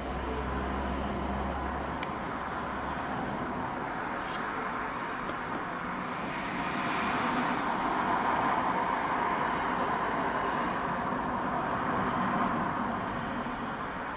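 Steady rushing noise of passing traffic that swells to a peak about midway and fades again.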